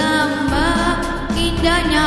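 A boy singing solo into a handheld microphone over a backing track, his voice sliding up into held notes twice.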